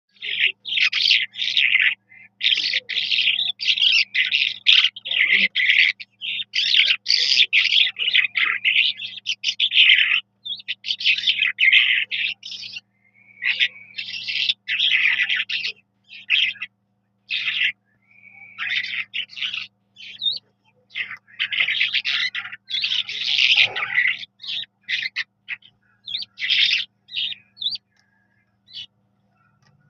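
Skylark singing: a long, rapid run of warbling, chirping phrases broken by brief pauses, growing sparser near the end.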